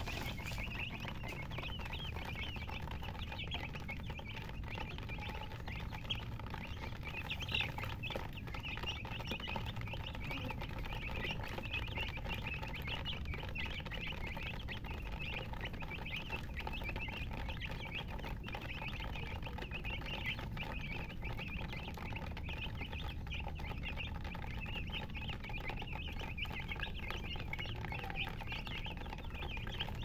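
A flock of young chicks peeping continuously, many short high chirps overlapping into a steady chorus.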